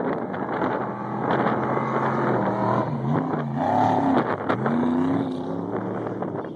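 Off-road race truck engine going past under power, its pitch falling and rising in the middle as it revs, over wind buffeting the microphone.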